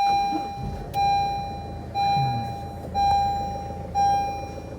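A car's electronic warning chime beeping about once a second, five tones in all, each ringing for most of a second and fading, with a low steady hum underneath.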